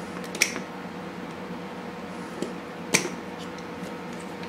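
Needle-nose pliers tightening a small nut on a drone frame: two sharp clicks about two and a half seconds apart and a few faint ticks, over a steady hum.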